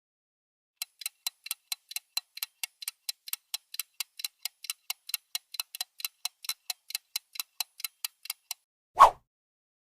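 Clock-ticking countdown-timer sound effect, about four even ticks a second, which stops about a second before the end. A single short, louder sound follows just after it.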